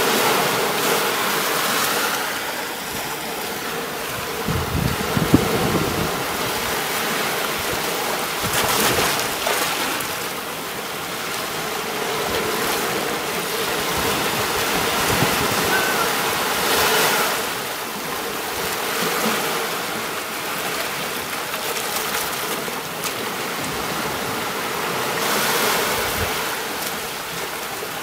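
Sea waves breaking and washing up a beach, the surf swelling about every eight or nine seconds over a constant wash. A brief low thump comes about five seconds in.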